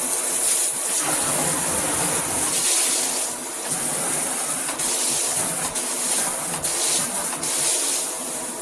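Water spraying steadily from a handheld shower head: a continuous hiss of fine jets.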